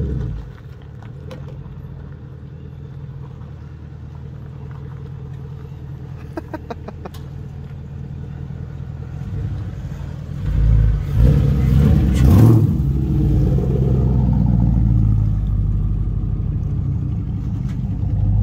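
Full-size GMC SUV engine running at low speed, faint at first, then louder from about ten seconds in as it drives up close, with a short rev near twelve seconds.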